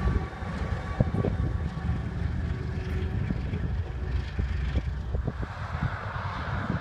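Canadian Pacific freight train rolling past: a low rumble with scattered clicks and knocks from the wheels on the rails. About five seconds in, the rumble gives way to a steadier hiss.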